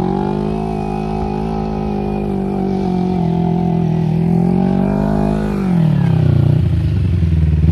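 Small engine of a homemade go-kart running steadily at high revs, then its pitch falls about five and a half seconds in and settles at a lower, steady speed.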